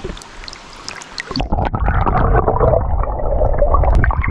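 Shallow river water splashing and lapping against a camera held at the surface; about a second in the camera goes under, and the sound turns into a loud, muffled underwater gurgling and rumble with the higher sounds cut off.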